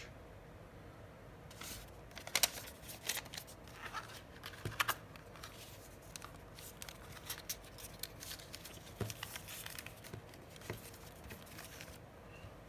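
Paper rustling and crinkling with small clicks as a receipt and booklets are handled, in short irregular bursts.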